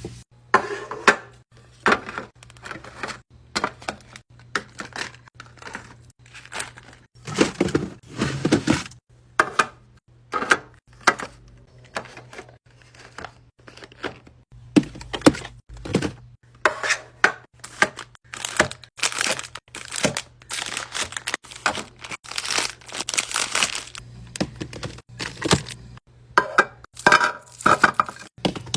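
Handling noises from restocking food packaging: plastic wrappers crinkling and rustling, and hard containers clicking, tapping and knocking as they are set down, many short sounds in irregular succession over a faint low hum.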